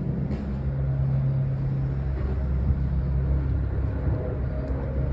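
Low, steady hum of a vehicle's engine or motor running, easing off about three and a half seconds in.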